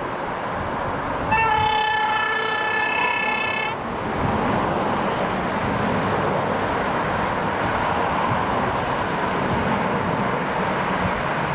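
ED4M electric train sounding its horn in one long blast of about two and a half seconds, starting about a second in. The running noise of the approaching train continues around and after it.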